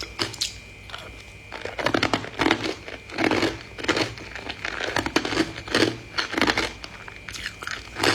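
Crunchy chewing or crinkling in irregular strokes, about one to two a second, with a faint steady high tone behind.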